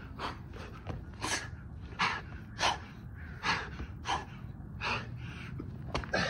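A man breathing hard from burpees, a forceful breath about one and a half times a second.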